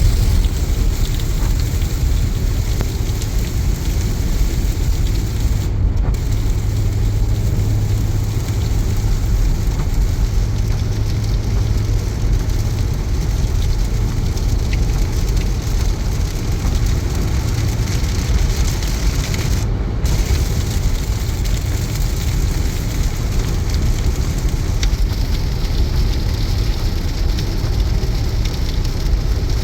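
Heavy rain on a car driving at motorway speed, with steady tyre and road noise and a low drone underneath.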